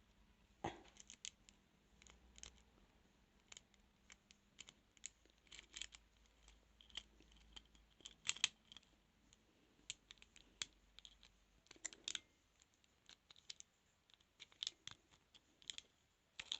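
Faint, irregular small metallic clicks and scratches of a lock pick working the pins inside a transparent practice padlock.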